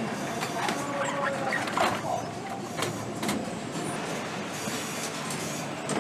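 Engine assembly line running: a steady machinery noise, broken by scattered short clicks and knocks of tools and parts being handled.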